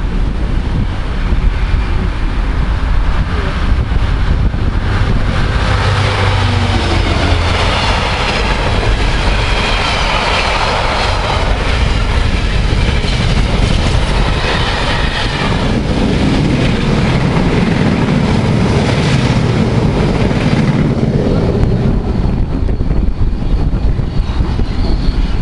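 A train running past at close range: continuous, steady rail and wheel noise.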